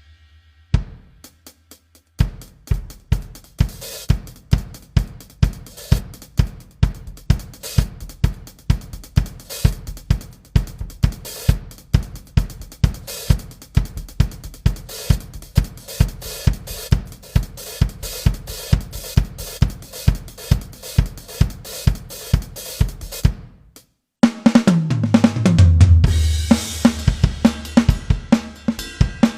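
Sampled drum kit from a 2box electronic drum module, played from a DIY 3D-printed drum pad: a steady beat of kick, snare and hi-hat. Near the end the beat breaks off for a fill down the toms, falling in pitch, with cymbal crashes before the beat comes back.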